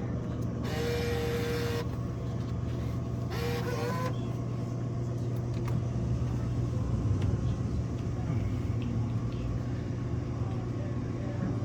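Dixie Narco soda vending machine running with a steady low hum, its mechanism whirring briefly twice, about a second in and again a few seconds later, as a second drink is bought.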